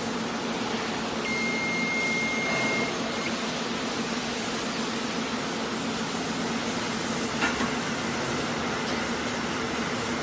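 Steady mechanical hum of the card slitting and collating machine. Its electric warning bell sounds once as a steady high tone for about two seconds near the start, signalling that the machine is about to be inched. A short click comes about seven and a half seconds in.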